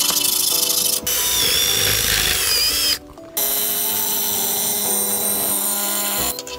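Dewalt 20V cordless angle grinder cutting porcelain plank tile: a high whine with grinding hiss for about two seconds from about a second in, then after a short break a second cut of about three seconds. Background music runs underneath.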